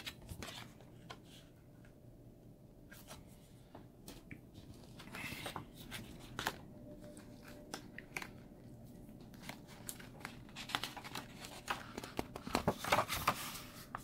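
Paper and cardboard being handled: scattered rustles and light taps as a printed manual and box inserts are moved, with a denser run of rustling near the end as the manual's pages are opened.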